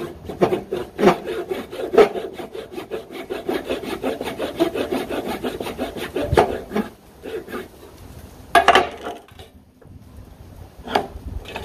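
Veritas Gent's-style rip saw, a fine 20-teeth-per-inch backsaw, rip-cutting a wooden board with steady back-and-forth strokes for about seven seconds before stopping. A short rattle and a single knock follow near the end.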